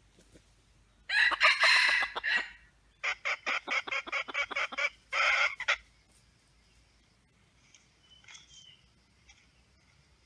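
Red junglefowl rooster calling loudly: a crow about a second in, then a rapid run of about ten short clucking notes and one brief final burst. A small bird whistles faintly near the end.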